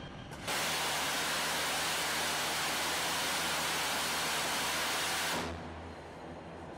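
A ship-launched anti-aircraft missile firing: its rocket motor gives a loud, steady rushing hiss that starts suddenly about half a second in and stops abruptly a little after five seconds.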